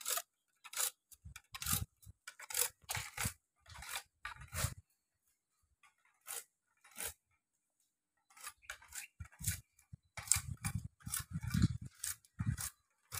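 Knife scraping the rind off sugarcane stalks in a run of short, irregular strokes, with a pause of a few seconds around the middle before the strokes start up again, closer together.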